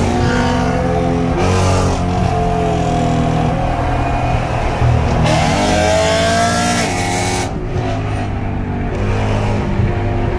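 BMW E93 M3's S65 V8 through a Dinan aftermarket exhaust, blipping its revs and then accelerating hard about five seconds in, the exhaust note rising steeply for a couple of seconds before settling.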